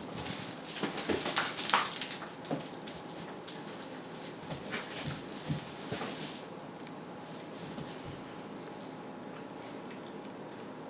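Terrier-cross puppy whimpering in short, uneven bursts during play, loudest between one and two seconds in. After about six seconds the sounds stop.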